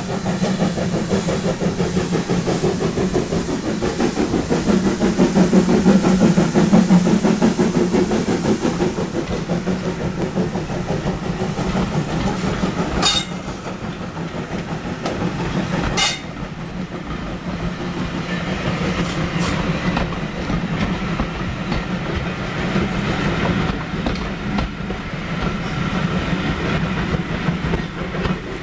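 Steam tank locomotive PKP 4015 Karel working a train past at close range, loudest a few seconds in as the engine goes by, then the coaches rolling past with wheels clacking over the rail joints. Two sharp clicks stand out partway through.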